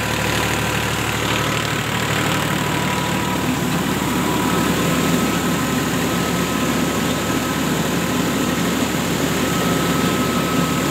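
Powertrac Euro 50 tractor's diesel engine running steadily at about 1700 rpm while it drives a rice mill, with the mill's machinery running and a thin steady whine over it.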